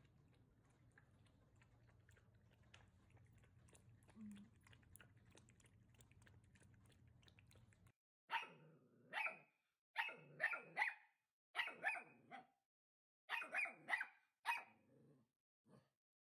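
Australian Cattle Dog (blue heeler) puppy barking: about a dozen short barks in quick bunches, starting about halfway in, after a stretch of faint low hum with small ticks.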